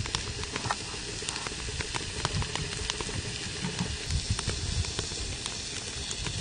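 Strips of raw pork belly sizzling in a hot black frying pan: a steady frying hiss with scattered sharp pops and crackles as the fat spits, while tongs move the meat.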